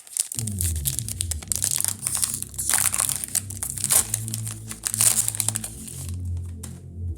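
Foil Pokémon booster-pack wrapper crinkling and being torn open, a dense crackle that stops about six seconds in, over background music.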